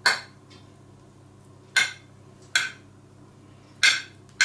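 Metal spoon clinking and scraping against a white ceramic baking dish while spreading stiff béchamel. About five short, sharp clinks, irregularly spaced about a second apart.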